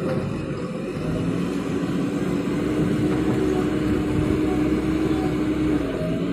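JCB 3DX backhoe loader's diesel engine running hard under hydraulic load. It revs up over the first couple of seconds, holds steady, and eases off slightly near the end.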